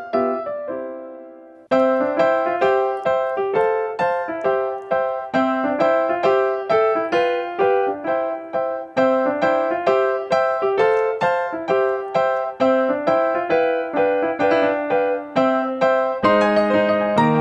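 Background piano music: a held chord dies away, then a new tune starts abruptly about two seconds in and runs on at an even pace of notes.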